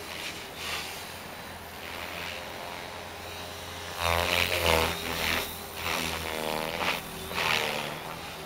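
Electric 500-size RC helicopter in 3D flight: the rotor and electric motor run steadily, then about halfway through the blade noise swells in several loud surges as it swoops and passes overhead.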